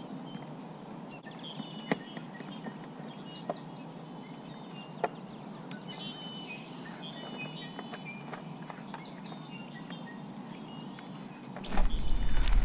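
Small birds chirping and singing over a light outdoor background, with a few faint sharp clicks. A louder low rumble comes in near the end.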